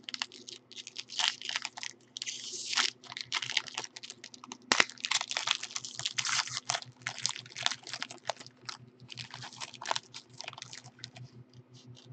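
Foil wrapper of a trading-card pack crinkling and tearing as it is pulled open by hand, a quick irregular crackle.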